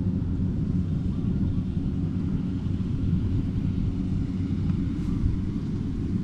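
An engine running steadily: a low, even hum that holds one pitch throughout.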